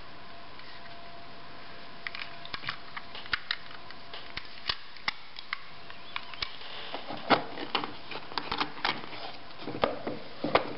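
Scattered clicks and light clatter of a Singer buttonhole attachment and its plastic case being handled, its small metal parts knocking together, the clicks coming thicker in the second half.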